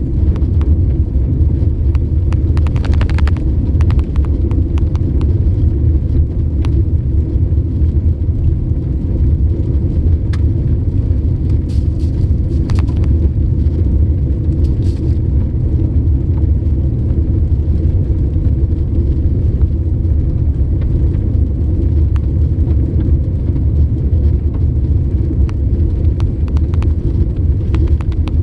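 Car cabin noise while driving: a steady low rumble of engine and tyres on the road, with a few short clicks or rattles about three seconds in and again near the middle.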